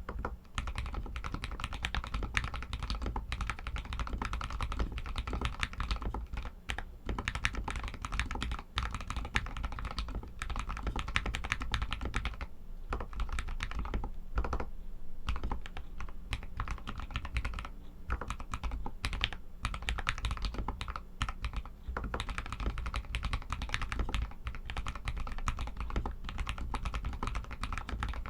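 Continuous fast typing on an RK61 mechanical keyboard with Outemu red linear switches, a dense stream of keystroke clacks with a short lull about halfway through.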